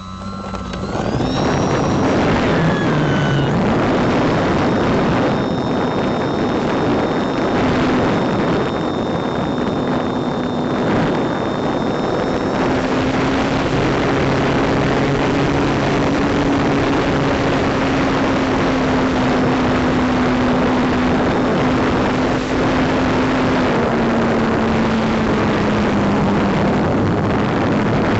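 RC biplane's motor and propeller heard from a camera mounted on the plane. It throttles up in the first second or two, rising in pitch, then runs steadily at high power under a loud, even rushing noise, with a thin high whine that fades out about halfway through.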